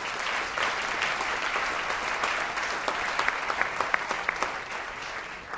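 Audience applauding: dense, steady clapping from a seated crowd that fades out near the end.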